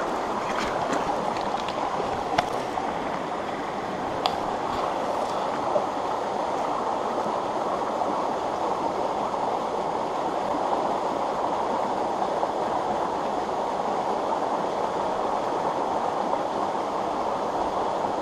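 Small mountain stream rushing steadily over rocks, with a few faint clicks in the first six seconds.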